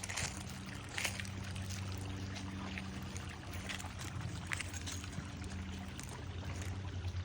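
Water splashing and trickling in short bursts, about a second in and again near four and a half seconds, over a steady low hum.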